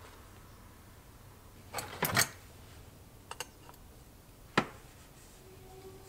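Small metal clicks and knocks from handling and reassembling a Bing moped carburetor. There is a quick cluster of clicks about two seconds in, two light ticks a little after, and a single sharp click a little past halfway.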